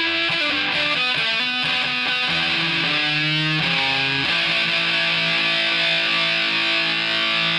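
Custom ASAT electric guitar played through a Tone Toaster fuzz pedal, a replica of the Foxx Tone Machine, on sustain at full with the fuzz sound, into a Peavey Bandit amp. A run of quick notes gives way about three seconds in to a bent note with wide vibrato, then a long sustaining note that rings on to the end.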